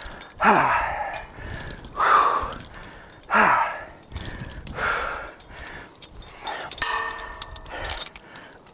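A man breathing hard and loud, heavy breaths about every second and a half, out of breath from climbing a tower under a heavy load of tools and a radio pack. A short metallic ringing clink comes about seven seconds in.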